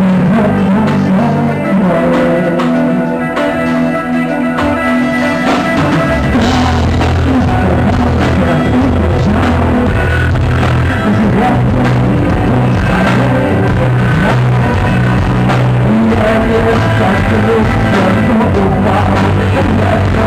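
Live rock band playing loudly through a club PA, with drum kit, bass and electric guitars and some singing. The low end thins out for a few seconds, then the full band comes back in about six seconds in.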